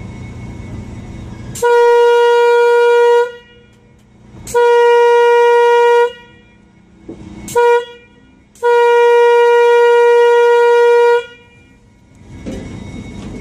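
Train horn sounding the grade-crossing signal: two long blasts, one short, one long, on one steady note. It warns that the train is approaching a road crossing.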